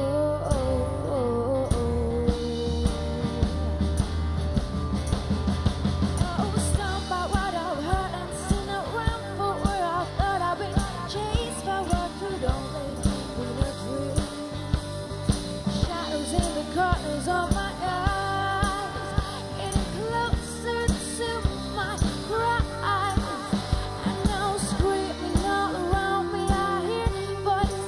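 A live rock band playing: a woman singing over electric guitar, bass guitar and drum kit, with a steady beat. The opening seconds are mostly instrumental, and the singing comes in about seven seconds in.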